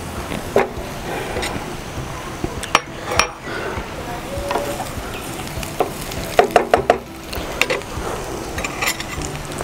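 Diced potato being stirred into onions frying in a hot pan: sizzling under the knocks and scrapes of the spoon against the pan, with a quick run of ringing metal clinks about six and a half seconds in.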